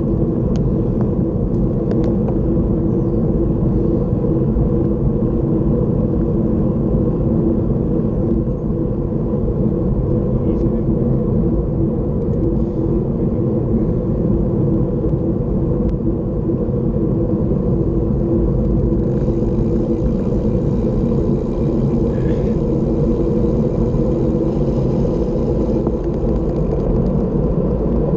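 Steady wind rumble on the microphone of a camera moving at speed down a road, mixed with steady road noise from the vehicle it rides on.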